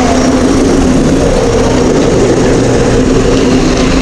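Steady wind and road noise from a bicycle being ridden, with a steady low hum underneath.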